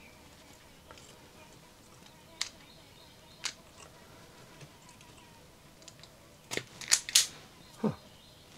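Kaiweets self-adjusting automatic wire stripper clicking as it clamps a wire and pulls the insulation off. There are two single clicks, then a quick cluster of sharp snaps about two-thirds of the way in, and a short falling squeak near the end.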